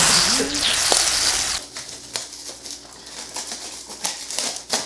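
A taped cardboard box being cut and torn open. A loud rip of packing tape and cardboard fills the first second and a half, then come scattered snips, clicks and rustles of scissors working along the cardboard.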